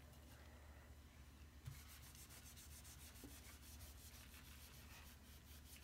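Faint, quick, rhythmic scrubbing of a fist's knuckles rubbing a toothpaste and baking soda paste into a varnished wood tabletop to scour off Sharpie marks. The scrubbing eases off at first, then picks up again with a light bump just under two seconds in.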